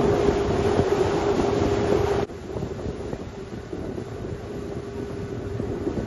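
Boat engine running with a steady hum, with wind noise on the microphone; about two seconds in the sound drops suddenly to a quieter, fainter engine hum.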